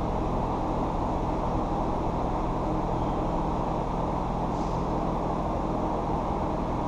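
Steady low rumble with a faint hum: the background noise of an indoor ice rink.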